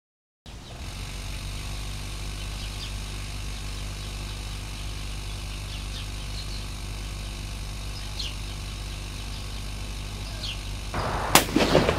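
Air pump running with a steady low hum as it pressurises a plastic soda bottle, with faint short chirps over it. Shortly before the end a loud, rough noise breaks in for about a second.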